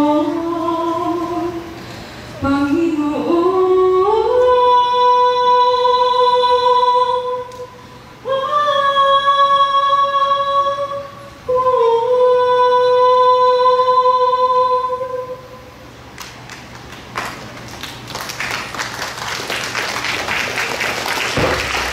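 A woman singing unaccompanied into a microphone: a run of notes climbing in pitch, then three long held notes of about three seconds each, the middle one a little higher. Over the last few seconds, audience applause builds.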